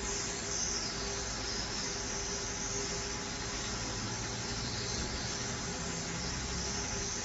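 Hot-air rework gun blowing steadily with a hiss and a faint steady hum, heating a chip's pins on a hard drive circuit board to melt the solder.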